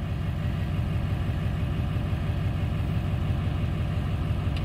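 Ford 7.3L Power Stroke V8 turbodiesel in an OBS F-250 idling cold, a few seconds after start-up, engine oil still at about 77°F. A steady, evenly pulsing low rumble.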